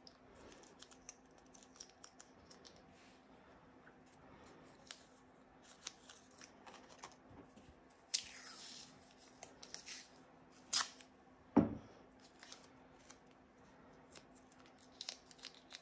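Quiet handling of masking tape: strips pulled off the roll and pressed onto the back of a paper cut-out. It comes as small clicks and rustles, with one louder knock partway through.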